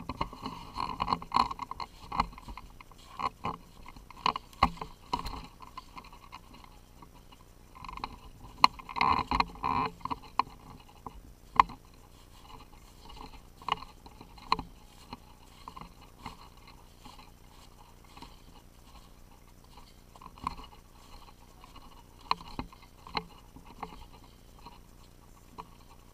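Footsteps crunching through old snow and dry leaf litter, with gear rustling; the crunching comes in uneven clusters, loudest in the first few seconds and again around eight to ten seconds in, with a few sharp clicks.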